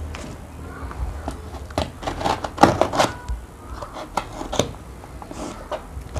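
A knife blade slitting the packing tape on a cardboard shipping box, with short scrapes and taps against the cardboard.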